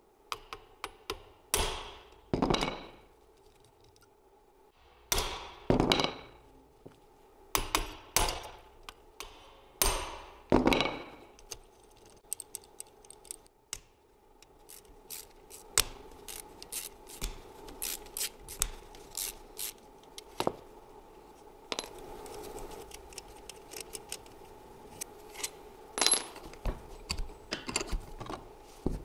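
Metal clinks, knocks and scrapes of hand tools and parts being worked on a car alternator in a bench vice. There are several ringing metallic strikes in the first ten seconds, then lighter, quicker clicks and scrapes.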